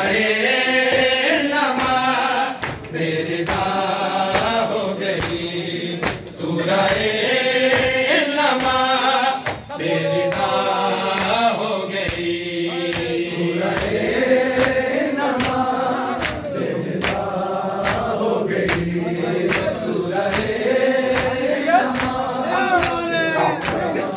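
Male voices chanting a noha, a Shia lament, in a wavering melody, with a steady rhythm of sharp slaps running under it: mourners beating their chests in matam.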